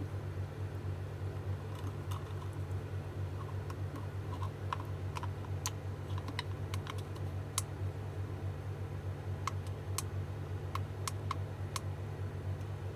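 Light, irregular clicks and taps of small hand tools and parts being handled during bench work, over a steady low hum.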